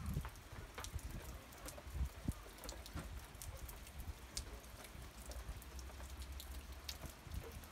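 Heavy rain falling steadily, with many sharp ticks of single drops striking close by.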